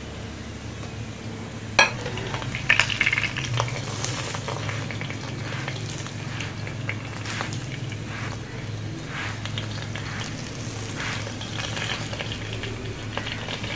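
Ghee-brushed keema paratha sizzling steadily on a hot tawa, with a low hum underneath. A metal spatula scrapes and taps against the pan as the paratha is pressed and pushed around, with a sharp clack about two seconds in and a run of clicks just after.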